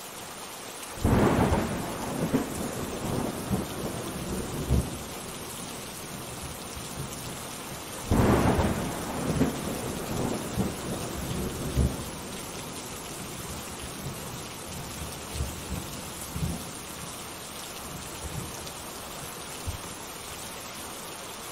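Steady heavy rain with two peals of rolling thunder, one about a second in and another about eight seconds in, each dying away over several seconds.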